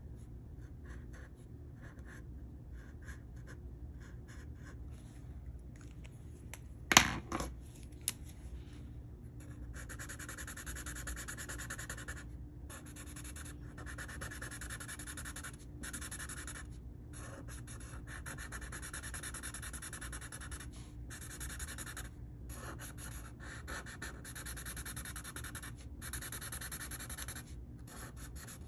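Felt-tip marker nib rubbing across paper, at first faintly, then from about ten seconds in in louder back-and-forth strokes that break off briefly each time the marker lifts. About seven seconds in there is a sharp click, and a smaller one a second later, as the black marker is swapped for a red one.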